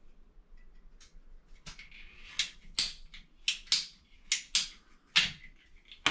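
A run of sharp, irregular clicks and snaps from a hand tool working on a PVC drain pipe, growing louder about two seconds in.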